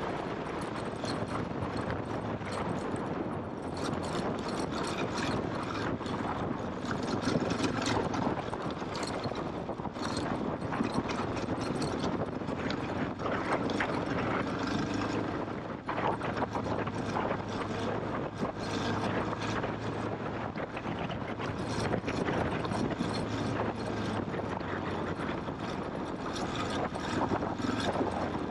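KTM trail motorcycle ridden over rough ground: the engine runs steadily at low revs under a continual clatter of knocks and rattles.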